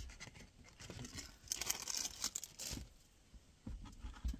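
Irregular rustling and crinkling handling noise, thickest between about a second and a half and three seconds in, with a few soft knocks near the end.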